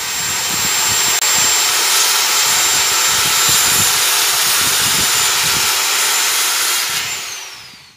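Handheld electric power tool running on a wooden tabletop, a loud steady hiss with a thin high whine. Near the end the whine falls in pitch as the tool is switched off and spins down.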